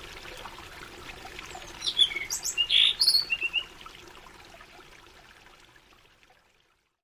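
Birds chirping in a short flurry of high calls over a faint steady forest background, all fading out to silence about six seconds in.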